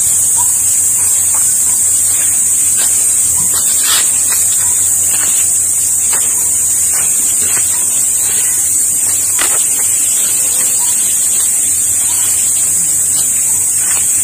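Cicadas droning steadily at a high pitch, with faint footsteps on a sandy path.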